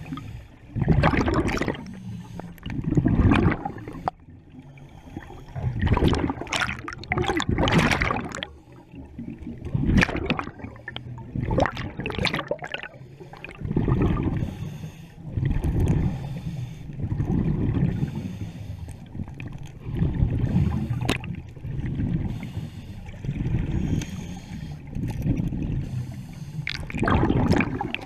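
Scuba diver's regulator breathing heard underwater: repeated bursts of exhaled bubbles gurgling past, about every couple of seconds, more regular in the second half.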